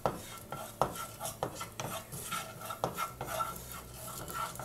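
A wooden spatula stirs and scrapes around a non-stick kadai in a handful of separate strokes and taps. Under it is a faint sizzle of fennel seeds frying in hot coconut oil.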